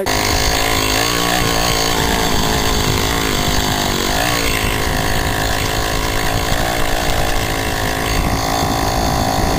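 Puch moped's small two-stroke engine running loud and steady while riding, with a brief dip and rise in pitch about four seconds in.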